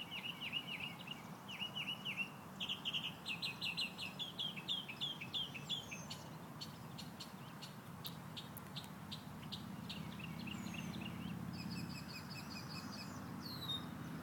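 Several wild birds chirping and singing in quick repeated phrases, then sharp chip notes and a fast series of high notes near the end. A low steady hum grows louder in the background.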